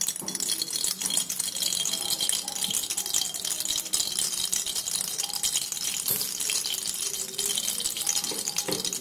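Mustard oil crackling and spitting in a hot kadai as it is poured in and starts to heat: a dense, steady run of fine crackles over a hiss.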